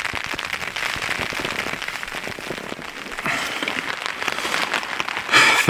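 Rain pattering densely and steadily on a tent, heard from inside.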